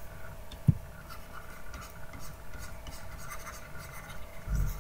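Pen stylus scratching across a graphics tablet in short, irregular strokes, with a sharp low knock just under a second in and a dull thump near the end.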